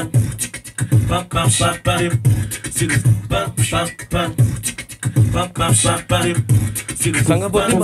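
Beatboxing into a close-held handheld microphone: mouth-made low thumps and sharp clicks and hisses in a quick, steady beat.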